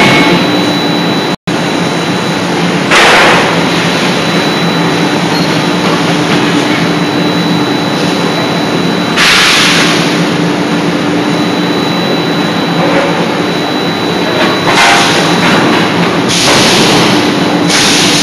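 Loud, steady drone of forging-shop machinery: a low hum with a faint high whine. Short hissing surges of about a second break in a few seconds in, about halfway, and three times close together near the end. No hammer blows are heard.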